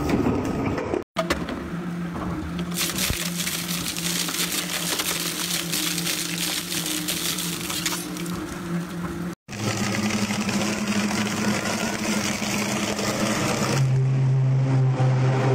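Industrial double-shaft shredders running, with a steady motor and gearbox hum as the blade shafts turn. A dense rattling, grinding noise rides on top for several seconds in the first half. The sound cuts out abruptly twice, about a second in and about nine seconds in.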